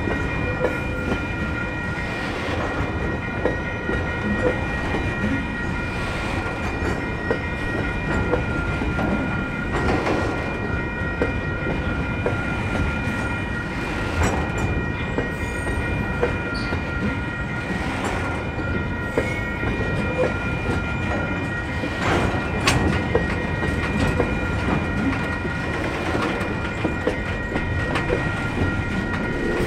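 Train of CET coal hopper wagons rolling past at close range: a steady rumble of wheels on rail with small clicks, a sharper knock every three to four seconds, and a steady high-pitched whine held over it.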